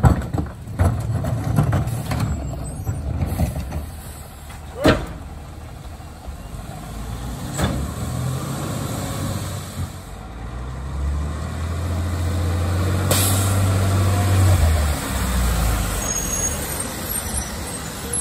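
CNG-powered McNeilus rear-loader garbage truck working its packer. The engine runs up and holds a higher speed for a few seconds in the second half, then drops back. There are sharp knocks at the start and about five and eight seconds in.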